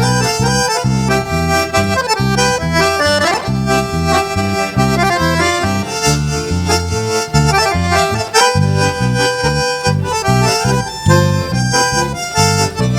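Live band playing the instrumental introduction of a sertanejo song, with melody lines over a steady bass beat, before the singing comes in.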